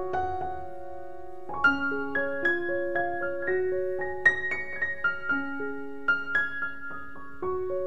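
Background piano music: an unhurried melody of single struck notes, each ringing on and fading.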